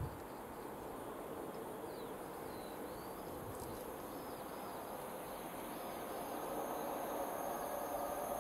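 Container freight train approaching from a distance: a faint steady rumble and hiss that slowly grows louder over the last few seconds. A thin high insect buzz and a few faint chirps sound over it.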